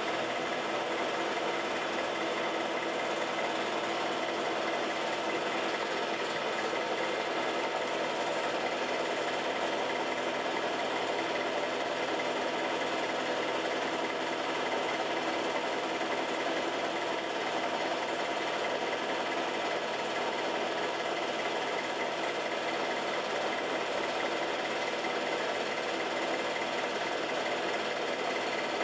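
Home-movie film projector running with a steady mechanical whir and clatter.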